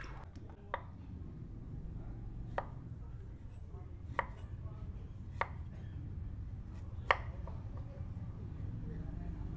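Knife chopping on a cutting board: five single, sharp strikes at uneven intervals of about one and a half seconds, over a steady low rumble.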